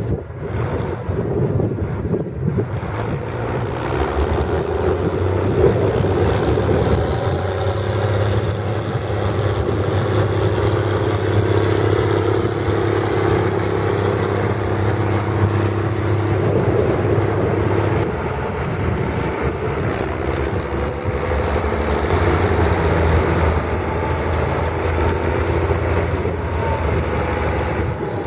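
International 1455 XL tractor's diesel engine running through a stainless straight-pipe exhaust. The engine note climbs about four seconds in and holds steady, drops back about eighteen seconds in, then climbs again.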